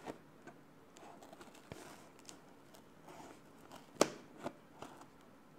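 Scissors snipping and scraping along packing tape on a cardboard shipping box, with light rustling of the box, and one sharp click about four seconds in.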